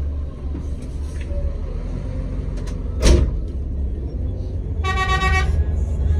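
Scania K124 IB bus's rear-mounted diesel engine running with a steady low rumble, a sharp thump about three seconds in, and a vehicle horn giving one short blast about five seconds in.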